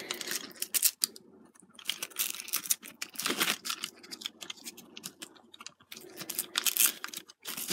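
Handling noise of a wrist strap being threaded through a plastic toy wrist changer: scattered plastic clicks, scrapes and rustles, with two louder scraping bursts about three and a half and seven seconds in.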